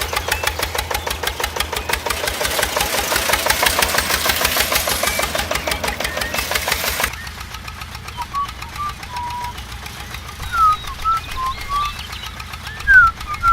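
A small motor running with a rapid, even mechanical ticking, typical of a DIY mini tractor's drive. It cuts off abruptly about seven seconds in. After that the sound is quieter, with scattered short high chirps.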